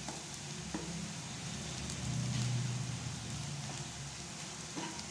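Small onions, green chillies and spices sizzling steadily as they fry in oil in a nonstick kadai, with a steel spoon stirring and scraping the pan in a few light clicks. A low hum swells for about a second in the middle.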